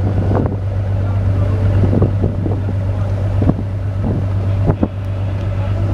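Motorboat engine running with a steady low drone as the boat moves across the harbour, with wind buffeting the microphone.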